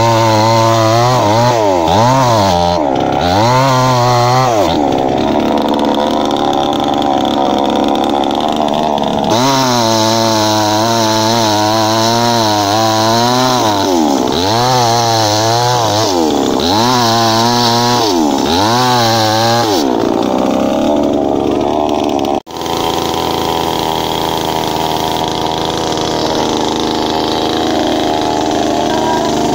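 Petrol two-stroke chainsaw cutting through tree trunks, its engine revving up and falling back again and again as the chain bites into the wood. After a brief break in the sound about two-thirds through, it runs at a steadier speed.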